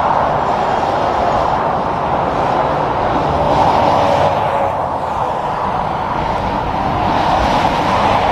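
Highway traffic with tractor-trailers passing: a steady rush of tyre and diesel engine noise that swells twice as trucks go by.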